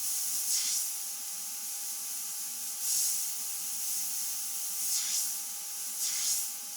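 Airbrush hissing steadily as it sprays paint, swelling louder four times as the trigger is opened for heavier passes.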